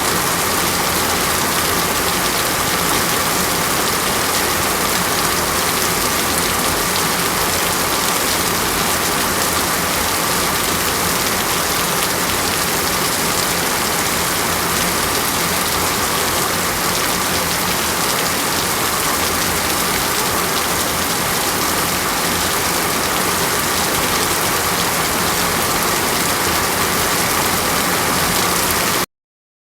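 Heavy rain falling steadily, an even rushing hiss with no breaks, that cuts off abruptly near the end.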